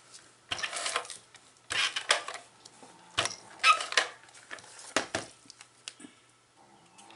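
Paper die-cut pieces being handled on a craft table: a run of short, crisp rustles and taps, about five in the first five seconds, dying away near the end.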